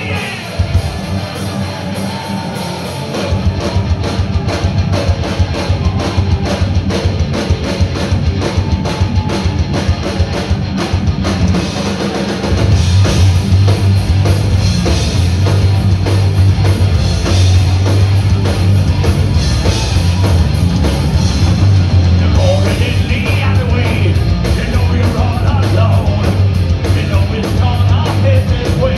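Live heavy metal band playing: distorted electric guitars, electric bass and a drum kit hit fast and hard. The sound fills out about three seconds in, and the low end grows much heavier about twelve seconds in.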